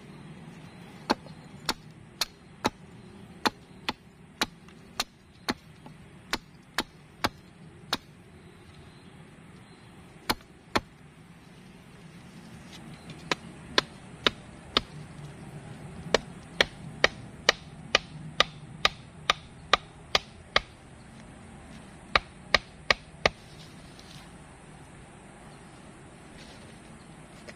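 Wood being chopped with a blade: sharp single strokes in runs of about two a second, with short pauses between the runs.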